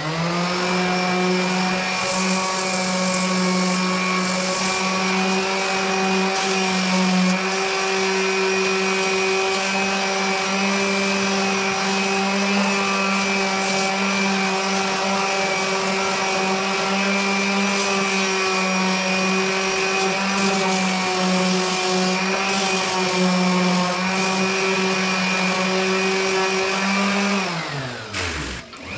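Electric power sander running steadily at a constant high pitch. Near the end it is switched off, winds down briefly and is started up again.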